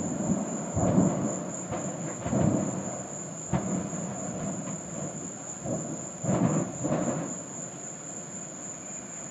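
Distant rumbling and booming from a burning propane storage yard as tanks keep going off, in several rolling swells with a sharper knock about three and a half seconds in. Crickets chirp steadily throughout.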